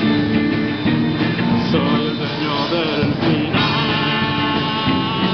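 A rock band playing live and loud: electric guitars through amplifiers over a drum kit, with a voice singing at the microphone.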